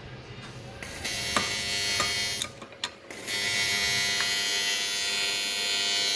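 Electric arc welder running: a steady, high buzz from about a second in, a short break with a few clicks, then a longer unbroken run from about three seconds in.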